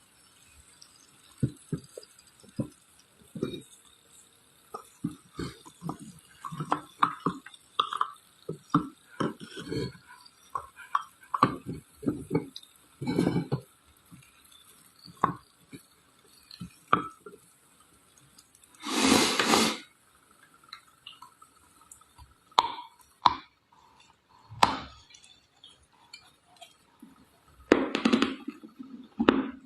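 Dry red clay being crunched: a string of short, crisp cracks and crumbling snaps, irregular in spacing, with a longer grinding crunch about two-thirds of the way through and another near the end.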